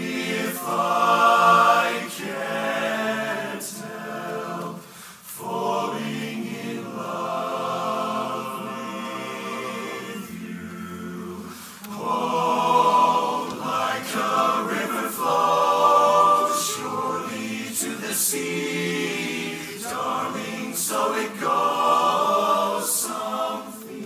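Men's barbershop chorus singing a cappella in close four-part harmony, in phrases that swell louder and drop back, with short breaks between phrases.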